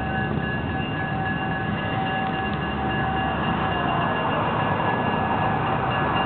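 Budd RDC diesel railcar pulling slowly into a station, its engines rumbling, with steady high ringing tones held over it. It grows a little louder from about four seconds in as it draws close.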